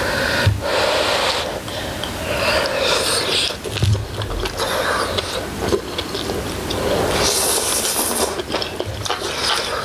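Eating sounds: repeated slurps of wide glass noodles and broth from a bulgogi hotpot, with chewing and small clicks.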